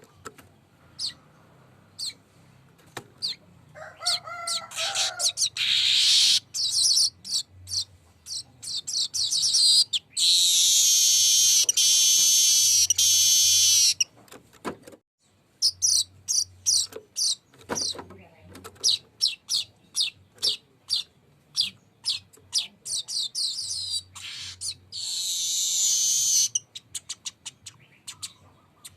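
Weaver bird (manyar) singing: strings of dry ticking notes that speed up into a long, high, buzzing rolling trill lasting about four seconds midway, with a second, shorter trill near the end.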